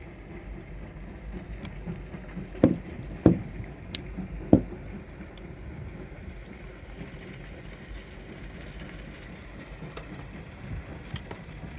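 Four sharp knocks in quick succession a few seconds in, over a steady low rumble.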